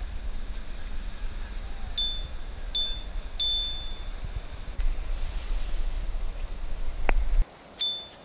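Low wind rumble on a camera microphone by the sea, with a few short, high-pitched beeps a couple of seconds in. Near the end the rumble cuts off suddenly and more short high beeps follow in quick succession.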